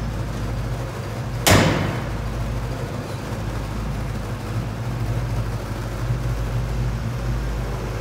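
1972 Chevrolet K5 Blazer's engine idling steadily, with the truck's door slammed shut once about a second and a half in.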